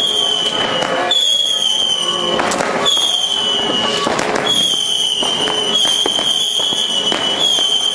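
Fireworks going off: a dense run of bangs and crackling, the heaviest about two and a half and four seconds in, over a high whistle that slides slightly down in pitch and restarts about once a second.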